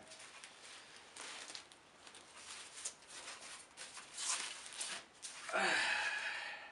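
Plastic packing material rustling and crinkling as it is handled and pulled about, in several bursts, the loudest one near the end.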